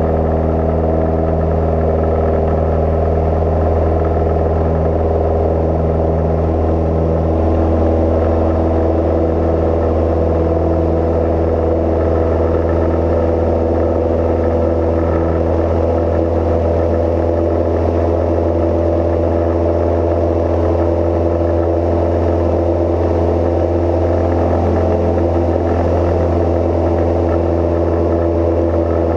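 Cozy Mk IV canard pusher aircraft's piston engine and propeller droning steadily in flight, a constant low hum with a stack of steady tones.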